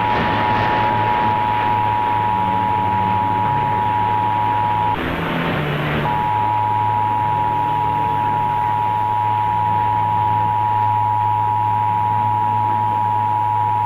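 Emergency Alert System attention signal: two steady tones sounded together, heard over a hissy radio broadcast. It drops out for about a second around five seconds in, then resumes.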